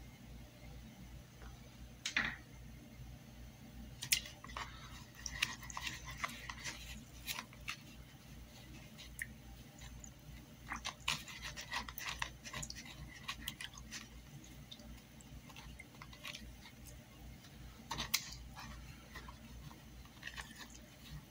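Faint irregular swishing of liquid with small clicks and taps as a copper-coated resin piece is swirled in a plastic tub of copper sulfate solution, sharper knocks about 2, 4 and 18 seconds in.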